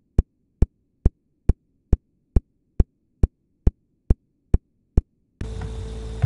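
A strictly regular series of short, sharp clicks, a little over two a second, over dead silence. Near the end the clicks stop and a low room hiss and hum come back.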